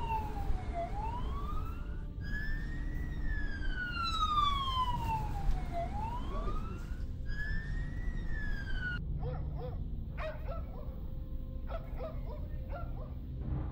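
A siren wailing, slowly falling and rising in pitch, each fall about three seconds and each rise about two, over a low rumble. It cuts off about nine seconds in, and short, sharp animal calls follow.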